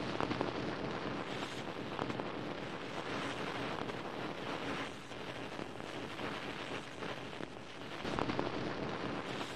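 Steady, dense rushing noise like heavy wind or static, with a few faint crackles; it dips a little around the middle and swells again near the end.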